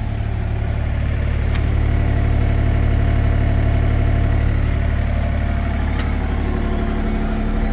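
Takeuchi mini excavator's diesel engine running steadily, growing a little louder over the first couple of seconds. Two sharp clicks come through over it, one early and one later on.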